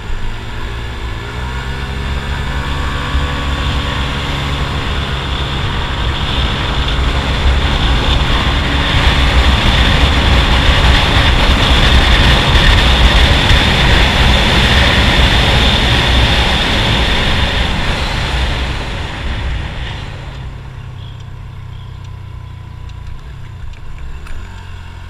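A 150 cc single-cylinder scooter engine running under way, with wind and road rush over the microphone that builds as speed rises, is loudest through the middle, and eases off about twenty seconds in.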